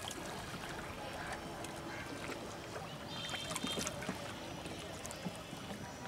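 Quiet open-air river ambience: a steady hiss with a few faint knocks, and a brief high-pitched call a little past the middle.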